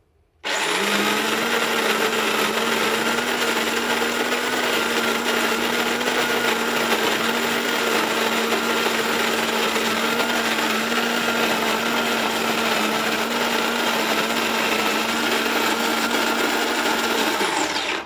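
Electric Melitta burr coffee grinder grinding a hopper of coffee beans: its motor spins up about half a second in, runs at a steady pitch for about 17 seconds, and stops just before the end.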